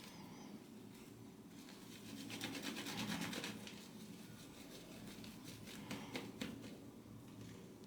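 Vie Long 13071 horse-hair shaving brush working lather from a hard shaving soap in circling strokes: a soft, quick, rhythmic wet brushing, louder for a second or so near the middle.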